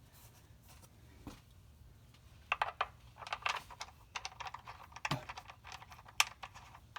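Ratchet wrench clicking in short bursts as the 13 mm oil drain plug is run back into the oil pan. The bursts start about two and a half seconds in, with one sharper click near the end.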